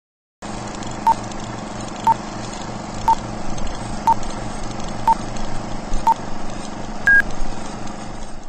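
Old film-leader countdown sound effect: a short beep once a second, six times, then a single longer, higher-pitched beep, over a steady hiss with a low rattle.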